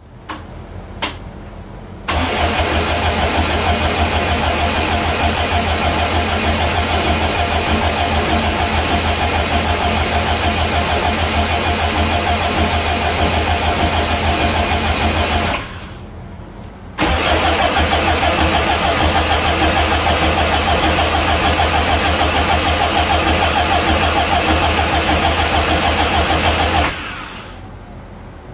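Turbocharged EFI air-cooled VW flat-four being cranked over on the starter without firing, to prime the oil system and check for oil leaks. Two long cranking runs with a short pause between, after a couple of clicks.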